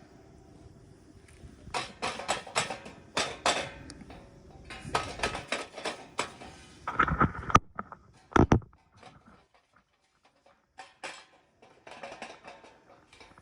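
Thin metal parts of a homemade Picogrill-style fire pit clinking and clattering as they are handled, in irregular bursts. Two heavier bumps come about seven and eight seconds in, then a few scattered ticks.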